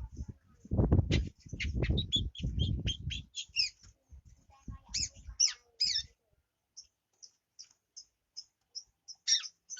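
Young long-tailed shrike (cendet), just out of juvenile plumage, practising its song: a jumble of short, scratchy high chirps and call notes. Toward the end these thin out to faint high ticks about twice a second, closing on a louder chirp. For the first three seconds they are overlaid by a loud, low rumbling noise.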